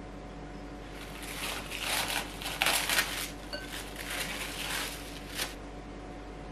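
Plastic cling wrap crinkling as it is peeled off a glass bowl of risen bread dough, in a run of rustles that starts about a second in, is loudest midway and stops near the end.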